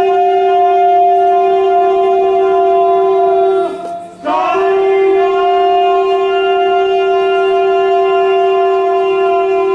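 Conch shell (shankh) blown in long, steady notes at one pitch. It breaks off for a breath about four seconds in and slides back up to the same note.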